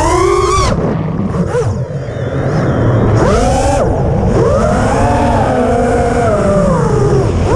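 FPV quadcopter's electric motors and propellers whining, the pitch climbing and falling with the throttle. There is a sharp cut just under a second in, a lower lull until about three seconds, then repeated climbs and a long held high pitch before it drops near the end. Rushing air sits under the whine.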